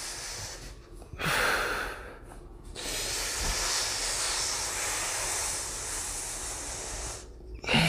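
Deep breathing close to a clip-on microphone during a core exercise: a short breath about a second in, then a long steady breath of about four seconds.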